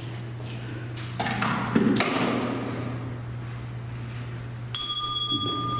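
Knocks and rustling picked up through a church's sound system, which carries a steady low hum, as the lectern microphone is handled. About three-quarters of the way in, a steady high ringing tone starts suddenly and holds.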